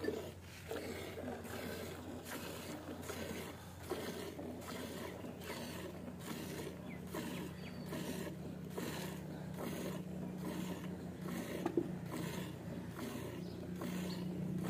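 Cow being milked by hand into a steel bucket: milk squirting into the frothy milk in a steady rhythm, about two squirts a second as the hands alternate. A steady low hum runs underneath and grows stronger in the second half.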